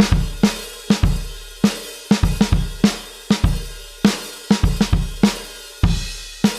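Alternative-rock drum loop on a drum kit alone: kick drum, snare, hi-hat and cymbals playing a steady rock groove.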